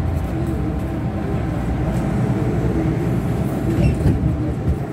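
Hong Kong MTR train running into a station, heard from inside the carriage: a steady rumble of wheels and motors.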